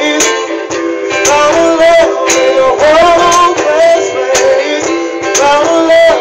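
Band playing an instrumental passage: plucked guitar chords under a melody line that slides up and down in pitch, with sharp percussive hits now and then.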